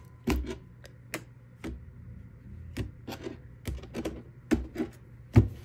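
Tarot cards being dealt down into piles on a wooden tabletop: a run of sharp, irregular taps, about ten in five seconds.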